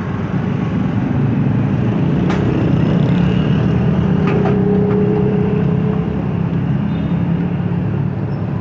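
Steady low engine drone, with a few short sharp clinks about two and four seconds in.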